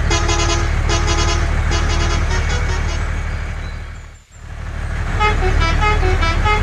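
Electronic tune of short beeping notes in a repeating pattern over a steady low hum. It fades out about four seconds in and fades back up a second later.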